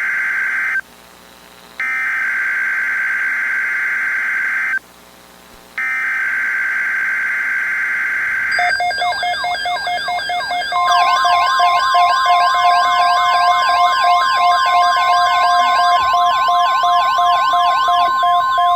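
Emergency Alert System tones. First come the digital SAME header bursts, a buzzing data screech sent as three blocks of about three seconds each with a one-second break between them. About nine seconds in, an attention signal begins: several siren wails, rising and falling together over steady beeping tones.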